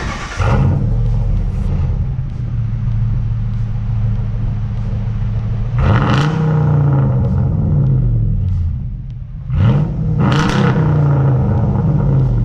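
Ram Daytona's 5.7-litre Hemi V8 through a freshly fitted Black Widow Neighbor Hater muffler, firing up and idling with a deep rumble. It is revved twice, about six and ten seconds in, each rev climbing and falling back to idle.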